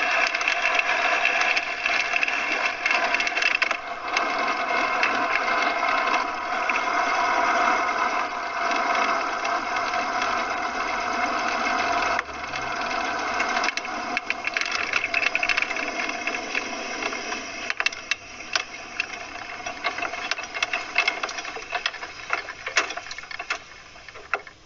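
Ultralight aircraft's piston engine running at low power on the ground, with the airframe rattling. It drops in level about halfway through, falls again later, and dies away near the end as the engine is throttled back.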